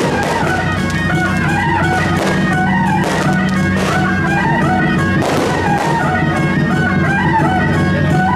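Loud music with a quick melody of short, stepped notes over a steady low drone, broken by a few noisy crashes about three and five seconds in.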